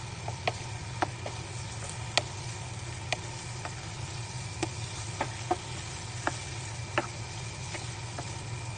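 Wooden spatula stirring pork pieces in a non-stick frying pan, with a dozen or so sharp, irregular clicks as it knocks against the pan. Underneath are faint sizzling and a low steady hum.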